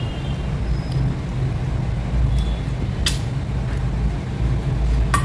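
Steady low background rumble, with a few light metallic clinks of a steel bowl against a steel plate near the start and a sharp click about three seconds in.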